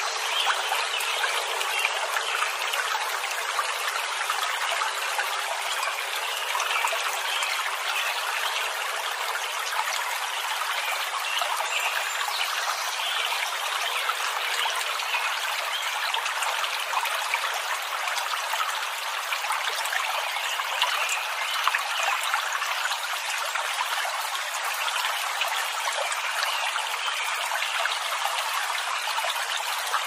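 Steady trickling of running water, a stream's continuous splashing and dribbling.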